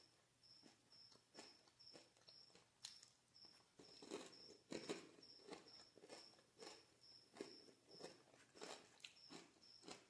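A cricket chirping faintly and steadily, short high chirps about twice a second. Close, irregular chewing and biting sounds of someone eating a crunchy fried kibbeh, loudest about halfway through.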